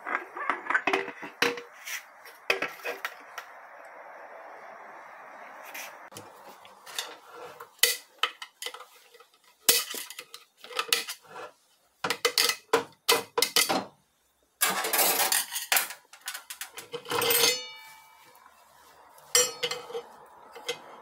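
Irregular metallic clinks and clatters, a few ringing briefly, as automatic-transmission parts are handled: the steel and friction plates of a 6R80 clutch pack knock against each other and against the clutch drum.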